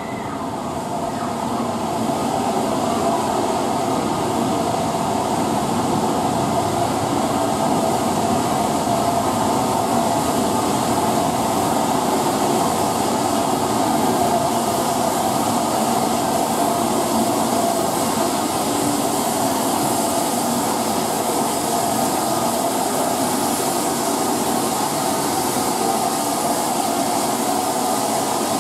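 LMS Stanier Class 5 4-6-0 steam locomotive drawing its coaches slowly into the platform: a steady running noise of the train with leaking steam, swelling over the first few seconds as it approaches and then holding steady.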